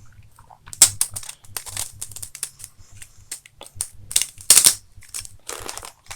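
Parts of a Beyblade Burst top (the VENOM Diabolos) clicking and snapping as they are pressed and twisted together: a string of small sharp clicks, a few louder snaps about a second in and again about four seconds in.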